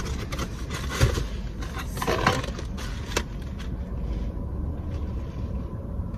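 Cardboard food box being handled: a few knocks and rustling scrapes as it is opened and moved about, over a steady low hum. The handling stops a little after three seconds in and only the hum is left.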